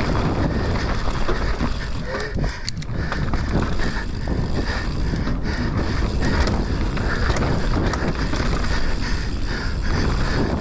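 Enduro mountain bike descending a rough dirt trail at speed: wind buffeting the microphone over a steady rattle of chain, suspension and tyres on dirt, with occasional sharp knocks from hitting roots or rocks.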